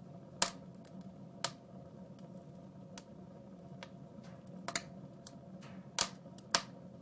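Wood fire in a fireplace crackling: scattered sharp pops at irregular intervals, the loudest about half a second in and twice near the end, over a low steady hum.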